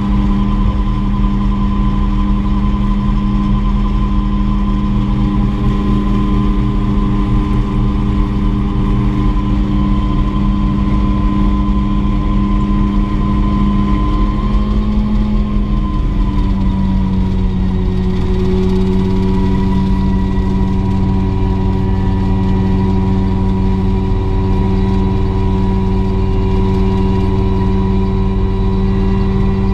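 Mosquito XET ultralight helicopter's turbine engine running steadily. Its pitch drops slightly about halfway through, then holds steady again.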